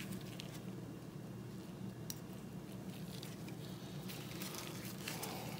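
Quiet room tone with a faint steady low hum and a few soft, scattered clicks of small parts being handled.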